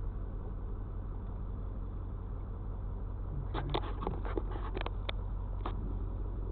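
Truck engine running at low speed, heard inside the cab as a steady low hum, with an irregular run of short clicks and knocks a little past halfway.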